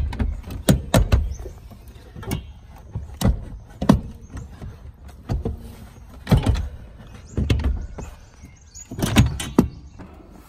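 Seat frame of a Mercedes-Benz A-Class (W168) knocking and clunking against the floor mounts as the seat is manoeuvred and its front lined up with the mounting points: about a dozen sharp, irregularly spaced knocks, some in quick pairs.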